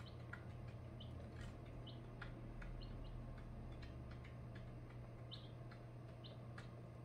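Four-day-old ducklings and chicks peeping faintly, short high peeps about once a second, with scattered light clicks and a steady low hum underneath.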